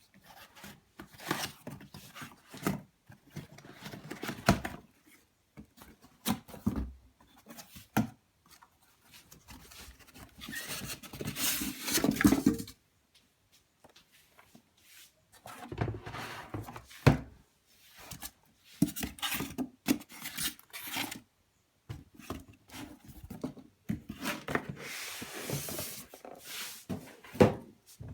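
Cardboard box and packing being handled and opened: irregular rustling, rubbing and scraping in bursts, with a few sharp knocks.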